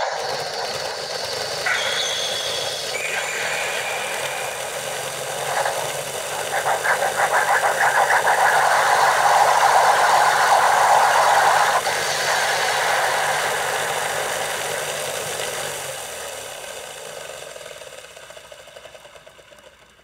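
Electronic battle sound effect played from the speaker of a CSM Henshin Belt Typhoon toy, with its Typhoon core lit. An engine-like whir with a few brief high tones early on builds to a rapid fluttering pulse about halfway through, then fades away over the last few seconds.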